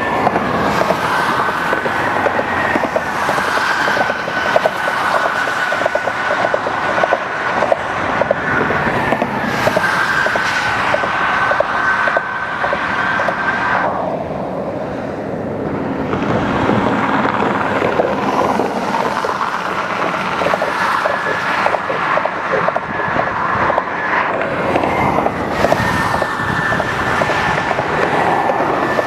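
Heavy interstate highway traffic crossing an overpass: steady tyre and engine noise with a thin whine, and repeated clacks and vibration from the bridge. The traffic eases briefly about halfway through, then builds again.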